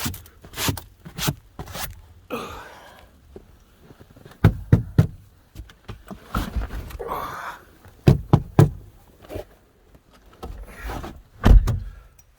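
A string of knocks, clicks and low thumps from someone moving about and handling things inside a car. The loudest thump comes near the end.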